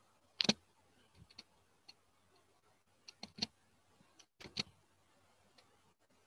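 Faint, scattered computer mouse clicks, the sharpest about half a second in and a close pair around four and a half seconds in.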